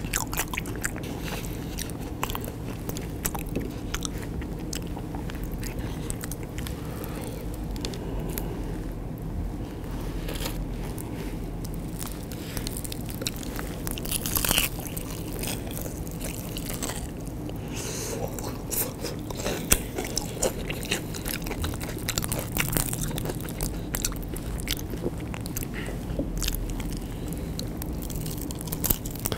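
Close-miked biting and chewing of crispy battered cempedak fritters (cempedak goreng), with many short crunches of the fried batter scattered throughout.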